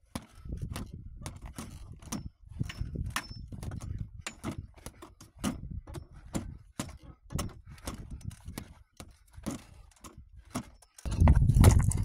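Wooden stick repeatedly striking a free-standing reflex punching bag: a quick, irregular series of sharp knocks. A low rumbling noise runs underneath and is loudest about eleven seconds in.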